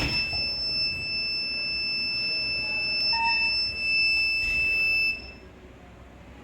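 Buzzer of a homemade door alarm circuit going off: one steady high-pitched tone for about five seconds, then it cuts off suddenly.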